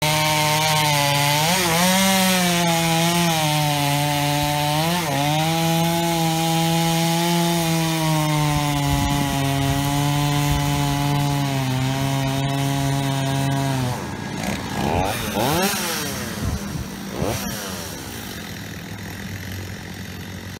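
Two-stroke chainsaw cutting through a felled pine trunk at a steady high speed, its pitch dipping briefly as it bites. About two-thirds of the way through it comes off the cut, revs up and down twice and drops to a lower, quieter running.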